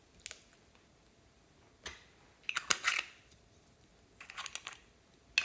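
Small plastic clicks and rattles as a hard plastic ball-shaped container is handled and its two halves twisted apart. A single click near the start, another just before two seconds in, a louder rattling run of clicks about halfway through, a second run near the end, and a sharp click at the very end.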